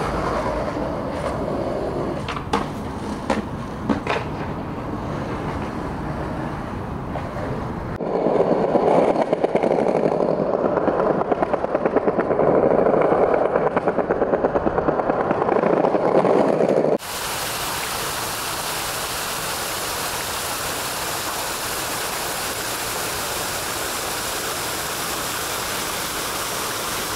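Three sounds, split by abrupt cuts. First, outdoor street ambience with a few sharp clicks. About eight seconds in, skateboard wheels roll over paved sidewalk slabs with a rapid, regular clack at each joint. About seventeen seconds in, a steady hiss of water falling in a fountain's water curtain.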